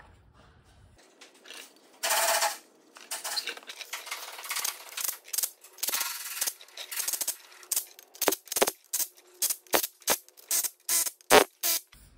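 Cordless impact tool running the bolts of a tractor's front-wheel-drive clutch cover in short bursts. It ends in a rapid string of brief trigger pulses, about three a second, as the bolts are snugged down.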